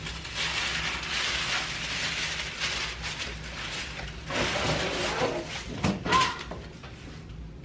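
Paper carrier bag and tissue paper rustling and crinkling as a large gift box is worked out of the bag, with a few sharp knocks and scrapes about six seconds in as the box comes free.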